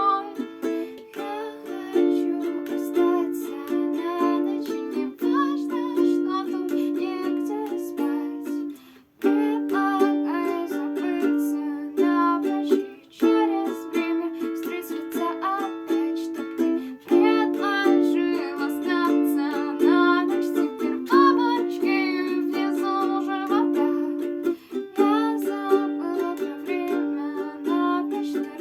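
Background music: an instrumental passage of held chords with a melody over them, with two short breaks about nine and thirteen seconds in.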